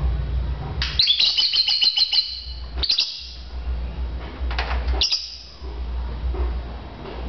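Lovebird chirping: a quick series of sharp, high chirps about a second in, then more chirps around three and five seconds in, over a low steady hum.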